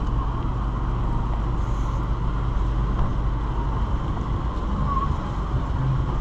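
Steady outdoor street ambience: a constant low rumble of traffic, with a few faint short chirps in the background.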